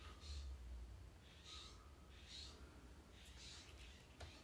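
Faint, close breathing of a person, several soft breaths in and out, with one light click near the end.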